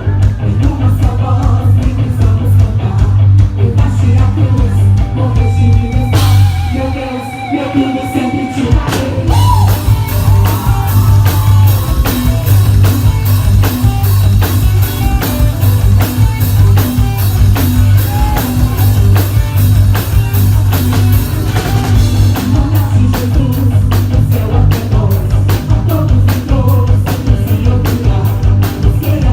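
Gospel rock band playing with singing, drum kit and guitar. About six seconds in, the bass and drums drop out briefly under a held, wavering note, then the full band comes back in with heavy cymbals.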